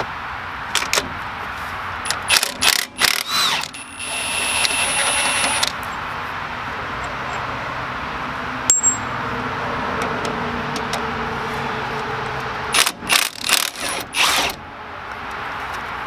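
Cordless impact wrench working the rear mounting bolts of a truck's front wheel hub. It runs in short, stuttering bursts of hammering about two seconds in and again near the end, with a steady whine of the tool running between them. A single metallic clink comes just past the middle.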